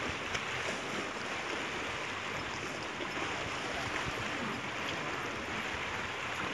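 Small sea waves washing and splashing against the boulders of a rock jetty, a steady hiss of moving water.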